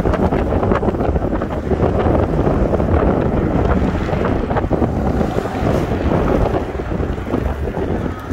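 Strong wind rushing over the microphone of a camera moving at riding speed: a steady, dense rumble with no clear tones.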